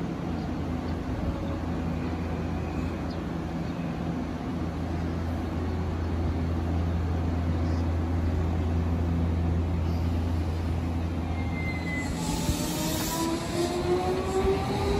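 Shin-Keisei electric train standing at the platform with a steady low hum. About twelve seconds in comes a short hiss, and the traction motors begin a whine that rises steadily in pitch as the train starts to pull away.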